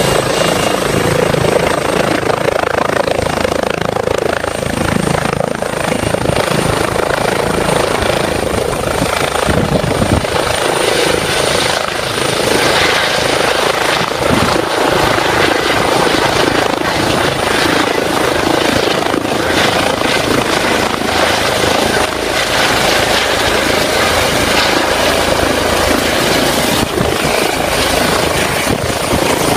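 Air ambulance helicopter taking off: loud, steady rotor and turbine noise, with a thin high turbine whine over it.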